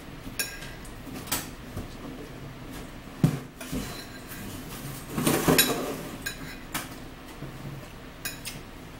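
Metal spoon clinking and scraping against a plate during a meal: a scatter of short sharp taps, with a louder, busier run of clatter about halfway through.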